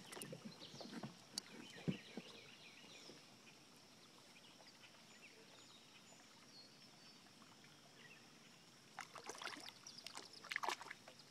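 Mostly near silence; near the end, a few short splashes of water as a hand-held musky is revived and released at the side of a boat.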